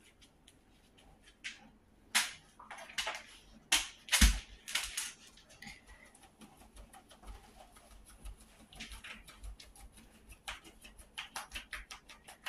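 A dog scratching itself with a hind leg: a quick run of soft ticks and scratches, with a few louder scuffs in the first half.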